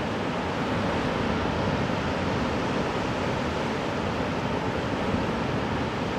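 Ocean surf breaking and washing onto the beach, a steady rushing noise, with wind on the microphone.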